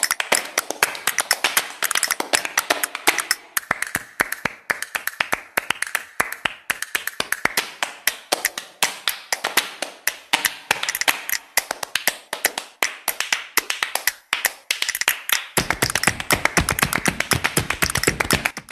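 Background flamenco music in a percussion-led passage: fast, rhythmic hand claps and taps with little melody. A fuller, deeper backing comes in about fifteen seconds in.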